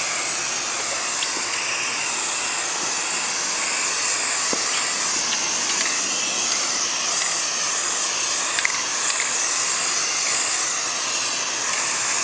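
Aerosol can of Rust-Oleum NeverWet spraying its second (top) coat in one long, continuous hiss with a slight wavering in tone.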